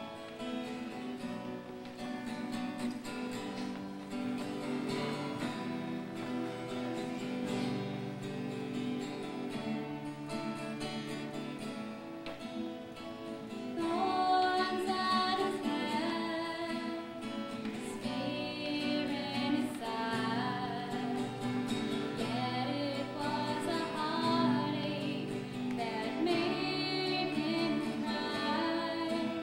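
Acoustic guitar strumming chords, joined about halfway through by a young woman singing a song.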